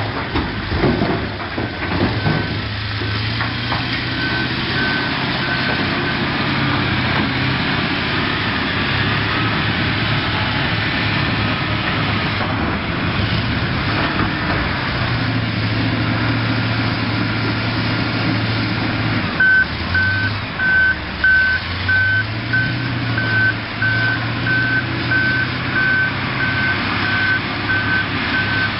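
Diesel engine of a heavy earthmoving machine running and changing revs, with a reversing alarm beeping about twice a second from about two-thirds of the way through. A few knocks come at the start and fainter beeps a couple of seconds in.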